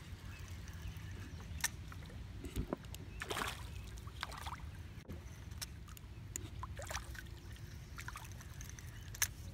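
A hooked fish splashing and thrashing at the water surface as it is reeled in on light line, a handful of short splashes over a steady low rumble.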